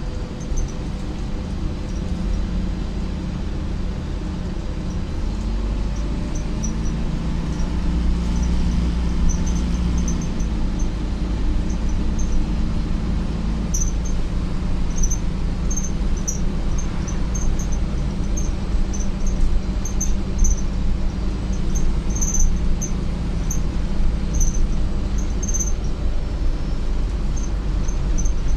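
Optare Solo M950 bus heard from inside the cabin while driving: a steady low engine and road drone, its note shifting about a fifth and again about halfway through, growing slightly louder. Short, high squeaks recur from about halfway through.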